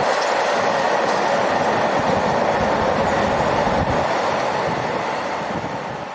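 Container freight train hauled by a Class 66 diesel locomotive rolling past, a steady rumble of wagon wheels on the rails, fading away over the last second or so.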